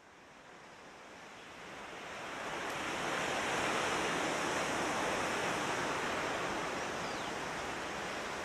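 Steady rushing outdoor ambience, an even noise like surf or wind, fading in over the first three seconds and then holding steady.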